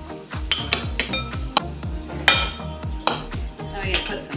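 Metal spoons clinking against glass bowls as fruit is spooned from one bowl into another: a string of irregular clinks, each with a short glassy ring. Background music plays underneath.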